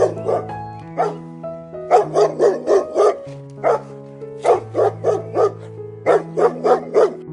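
A Great Pyrenees barking in quick runs of five or six barks, about four barks a second, with short pauses between runs. Background music with long held notes plays underneath.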